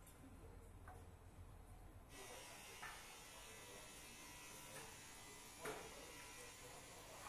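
Near silence: faint background ambience, a low hum that changes about two seconds in to a faint hiss with a few soft clicks.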